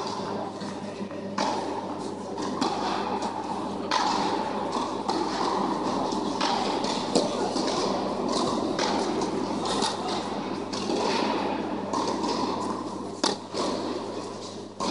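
Tennis balls struck by rackets in a rally: sharp pops every one to three seconds, echoing in a large hall, over a steady low hum.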